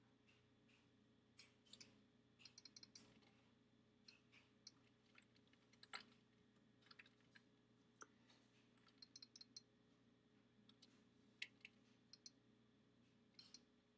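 Faint typing on a computer keyboard: short bursts of quick keystrokes with pauses between them, and a few louder single clicks.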